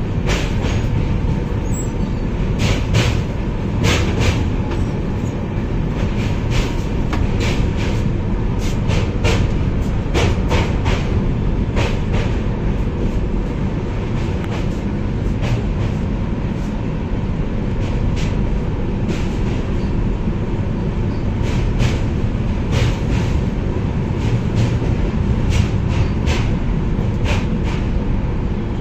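A train running across a steel girder railway bridge, heard from inside the coach: a steady, loud rumble with frequent, irregularly spaced clicks and knocks from the wheels on the track.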